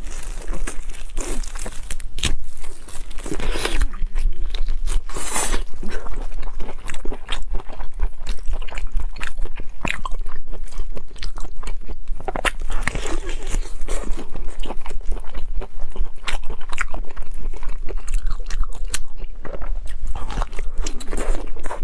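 Close-up eating sounds: a person biting and chewing crunchy food, with dense, irregular crunches throughout over a low hum.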